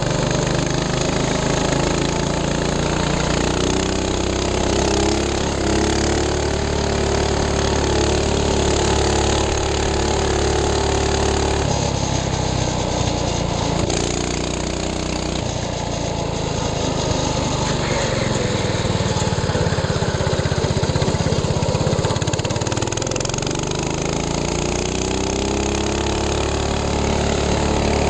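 Minibike engine running as it is ridden, a steady buzzing drone whose pitch falls and rises a few times as the throttle is eased off and opened again.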